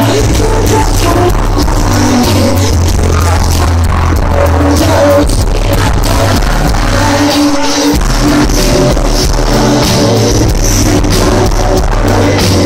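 Live band music with singing, recorded loud from the crowd, the heavy bass distorting in the recording. The bass drops out briefly a little past the middle and then comes back.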